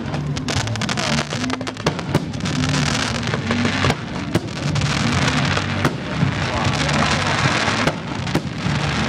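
Aerial fireworks crackling and popping densely, with many sharp cracks and a few louder bangs, over music playing from the show's sound system.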